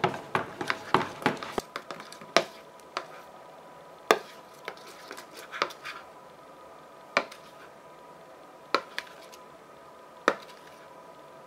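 Metal spoon stirring a thick mix of white glue and liquid foundation in a bowl, clicking against the sides: a quick run of clicks at first, then single clicks every second or two.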